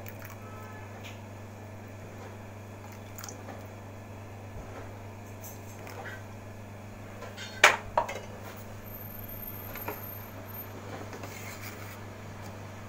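Wooden spatula stirring a wet gravy in a metal pan, with light scrapes and clicks against the pan. Two sharp clacks a little past halfway, and another softer one soon after. A steady low hum runs underneath.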